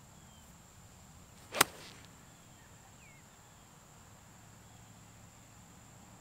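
Sand wedge striking a golf ball on a full 100-yard approach shot: one sharp, crisp click about a second and a half in, struck full.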